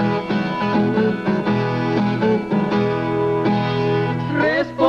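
Viola caipira picking the instrumental break between sung verses of a moda de viola: plucked notes ringing over steady lower accompaniment.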